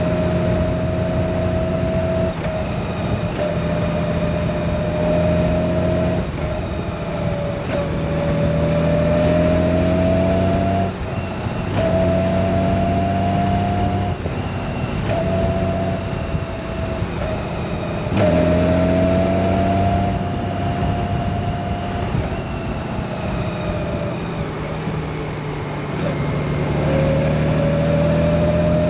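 Honda Gold Wing DCT's flat-six engine running under way, its note rising and falling with a break every few seconds, over steady wind and road noise.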